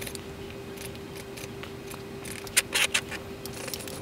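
A few sharp clicks and light scrapes as a small model Stirling engine is handled and its flywheel bearing oiled from a squeeze bottle, bunched about two and a half to three seconds in, over a steady low hum.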